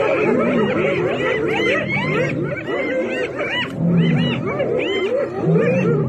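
A pack of spotted hyenas calling together: many overlapping short calls that rise and fall in pitch, with lower held notes about four seconds in and again near the end.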